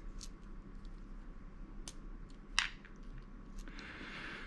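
An old lighter being handled: a few light clicks, the loudest about two and a half seconds in, then a short scratchy rustle near the end.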